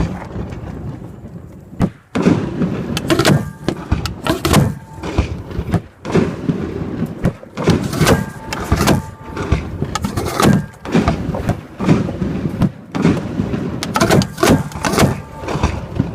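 Aerial fireworks firing at close range from mortar tubes: a dense, continuous run of loud launch thumps and shell bursts, one on top of another.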